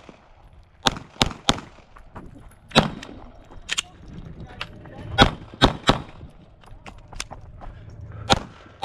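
Glock 45 9mm pistol firing about nine shots at a quick, uneven pace: three rapid shots about a second in, single shots near 3 and 4 seconds, another quick string of three around 5 to 6 seconds, and a last shot near the end, each crack followed by a short echo.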